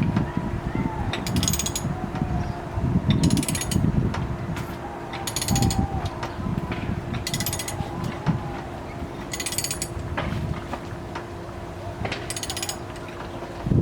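Hand ratchet turning the forcing screw of a ball joint press while a ball joint is pressed in on a 2005 Chevrolet Suburban. Short runs of ratchet clicks come about every two seconds, with low rumbling from the press working under load between them.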